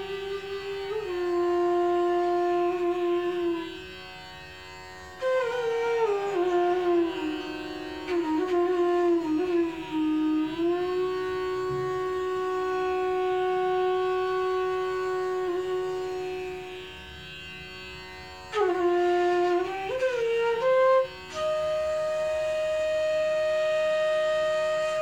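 Indian bamboo bansuri flute played solo in a classical style: long held notes joined by slow sliding bends between pitches, with short ornamental turns and a couple of brief softer moments between phrases.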